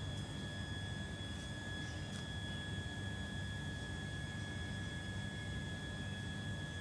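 A steady hum with a constant high-pitched whine, and a few faint clicks in the first couple of seconds.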